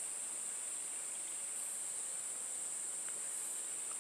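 Insects singing in a steady, unbroken high-pitched chorus.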